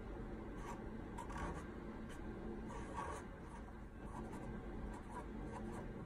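Marker pen drawing on paper: a run of short, irregular stroke sounds as an outline and small scale marks are drawn.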